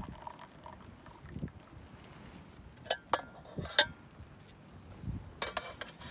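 The last thin trickle of water pours from a small aluminium camping kettle into a titanium mug. Then come sharp metallic clicks and clinks as the kettle is handled, the loudest a little under 4 seconds in, and a quick cluster of clinks near the end as the kettle is set down.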